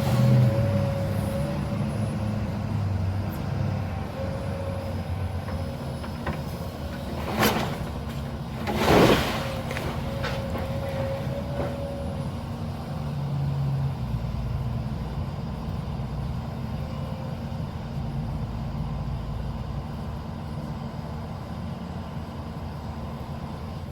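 A heavy machine's engine running steadily as a house is being demolished, with two sharp crashes about seven and nine seconds in.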